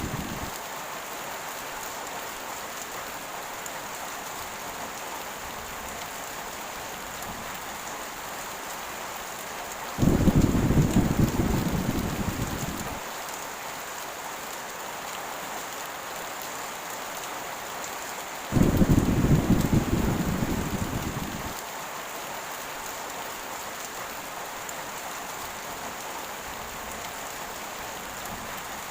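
Heavy rain falling steadily. Two rolls of thunder break in, about a third of the way in and again about two-thirds in, each starting suddenly and dying away over about three seconds.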